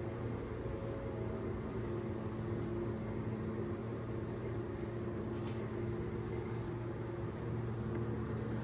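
A steady machine hum: a low drone with a few fainter held tones over a soft hiss.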